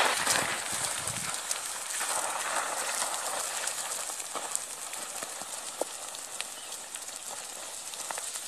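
Feet scuffling and sliding on loose dirt and gravel: a loud scuff right at the start, then a steady hiss of shifting grit with scattered small clicks of stones.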